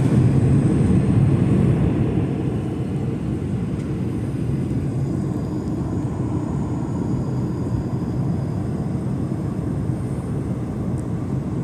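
Steady low rumble of engine and airflow noise inside the cabin of an Airbus A220 in flight, heard from a window seat beside its Pratt & Whitney PW1500G geared turbofan. It is a little louder for the first two seconds, then holds level.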